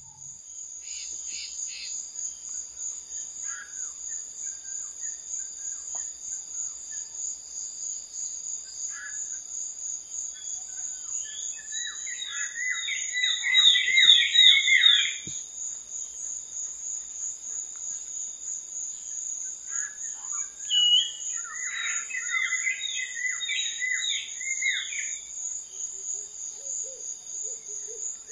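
Insects buzzing in a steady, high-pitched, pulsing drone, with a bird singing two runs of quick, loud chirps: one near the middle and another about three-quarters through.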